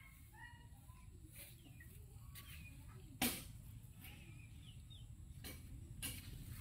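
Faint, scattered short bird calls in the background, mixed with a few knocks and rustles. A sharp knock a little after three seconds is the loudest sound.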